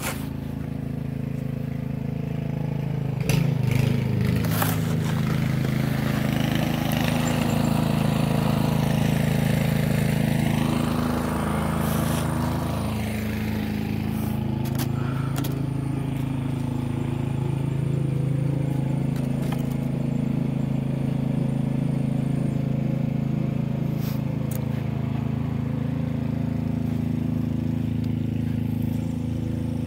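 An engine running steadily at an even pitch, a little louder between about four and twelve seconds in.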